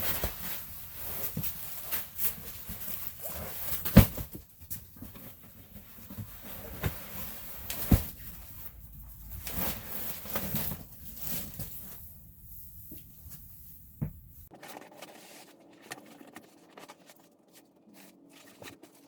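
Scattered knocks and rustling of flooring materials being handled and laid, with a sharp knock about four seconds in and another about eight seconds in; quieter, sparser handling noise near the end.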